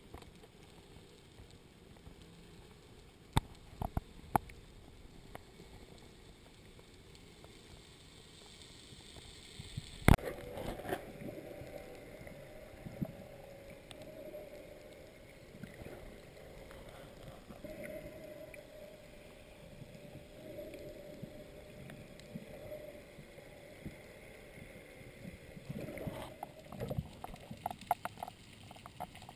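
Water sloshing and gurgling around an underwater camera near the surface during spearfishing, with scattered knocks, the sharpest about ten seconds in, from the speargun and camera being handled.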